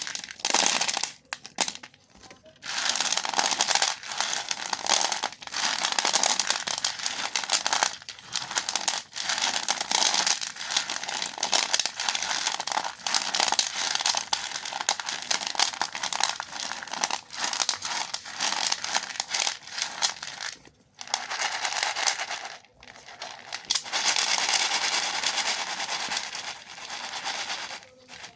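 Candy wrappers crinkling and rustling as they are handled and torn open, going on almost without pause, with a few short breaks.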